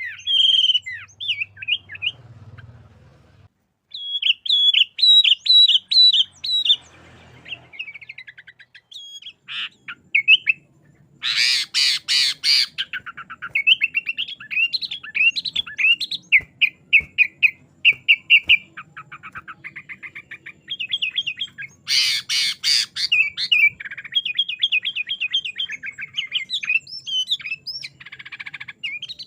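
Sooty-headed bulbul (kutilang) in full song: long runs of quick, rapidly repeated chirping notes, broken twice, about 11 and 22 seconds in, by loud harsh rasping bursts.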